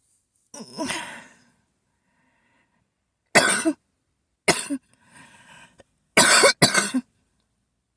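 A person coughing harshly during an asthma attack: a breath, then four hard coughs, the last two in quick succession, with a quieter breath between them.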